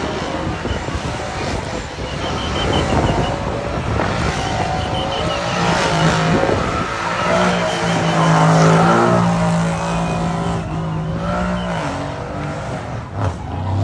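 Car engines revving and running, with pitch rising and falling as they rev.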